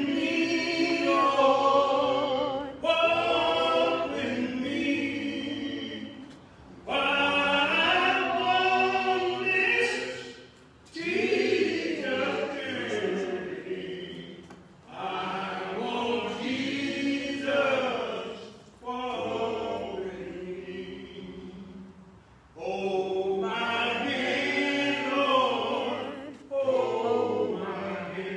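Slow unaccompanied hymn singing, held notes gliding up and down in long phrases of a few seconds each with short breaks between them.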